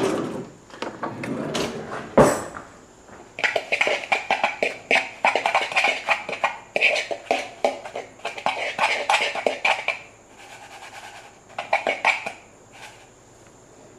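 A fork stirring a dry spice rub of brown sugar and ground spices in a plastic mixing bowl, in a quick run of scratchy scraping strokes, with one sharp click about two seconds in. The stirring stops about ten seconds in and comes back for one more short burst.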